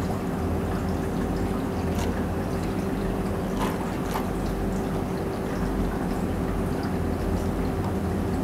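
Milk and creamer poured in a thin stream from a glass measuring jug onto ice in a plastic cup, over a steady low hum, with a few light clicks.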